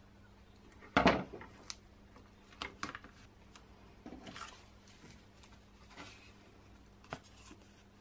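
Strips of tape and a cardboard model being handled while the tape is pressed onto a wing joint: scattered light rustles and clicks, with one louder knock about a second in.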